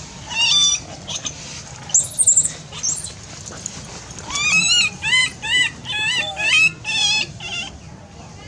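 Short, high-pitched animal squealing calls: a few scattered ones, then a quick run of about a dozen, two to three a second, starting about four seconds in.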